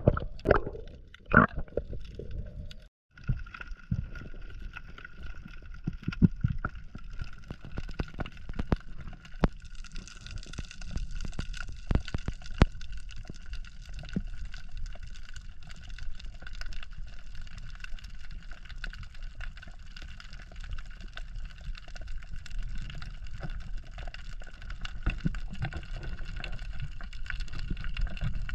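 Underwater sound picked up through a diver's camera housing: a low wash of moving water with scattered sharp clicks and crackles, and a faint steady high whine. In the first two seconds, louder knocks and rubs as a speared fish is handled on the spear shaft. The sound drops out briefly about three seconds in.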